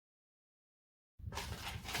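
Dead silence, then about a second in a rustling, clattering handling noise starts abruptly and runs on.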